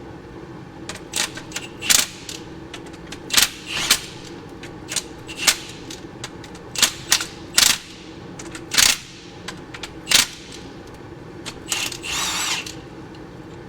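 Sharp metallic clicks and clinks from hand tools working on the engine's main bearing caps, coming irregularly about once a second over a steady low hum. A short scrape comes near the end.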